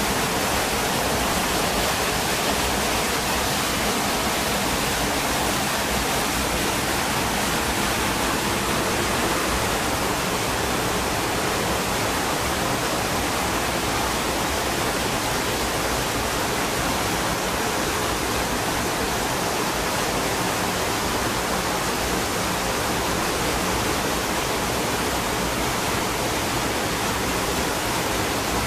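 Small waterfall on a woodland stream: a steady, unbroken rush of falling water.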